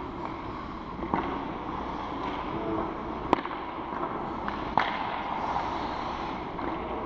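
Ice rink game sound: a steady background of the arena, broken by sharp clacks of hockey sticks and puck. The loudest comes about three seconds in and another near five seconds in.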